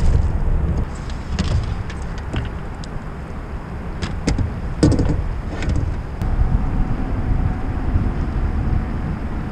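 Steady low rumble of wind on the microphone, with a few sharp knocks and clicks of fishing gear being handled against a plastic fishing kayak.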